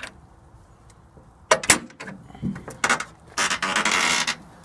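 Hood of a John Deere 770 compact tractor being lowered by hand, engine off: two sharp clicks about a second and a half in, a few light knocks, then about a second of scraping rustle near the end.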